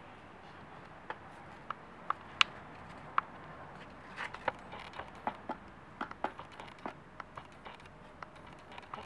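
Japanese quail dust-bathing in fine sand in a plastic tub: sharp ticks and patters of sand grains and scratching against the plastic, a few spaced ticks at first, then coming thick and fast from about four seconds in.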